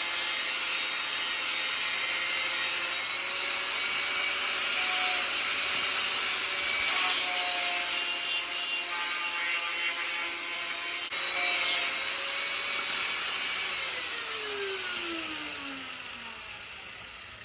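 Power sander working down metal filler and welds on a steel bracket to smooth them for paint: a steady gritty whir, louder for a few seconds in the middle, then the motor winding down in a falling whine near the end.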